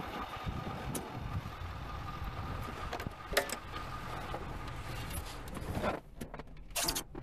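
Steady outdoor wind and rain noise, with a sharp latch click about three and a half seconds in as a Corvette's door is opened; about six seconds in the outside noise cuts off sharply as the door shuts with the person inside the car, followed by a few small knocks.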